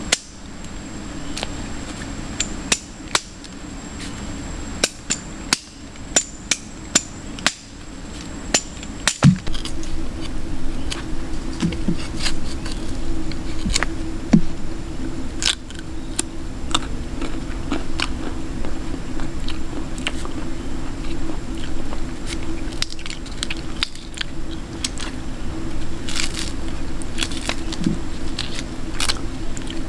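Irregular sharp clicks and snaps of a knife cutting and peeling a crisp plant food by hand, over a steady low hum, with a thin high whine for the first nine seconds or so.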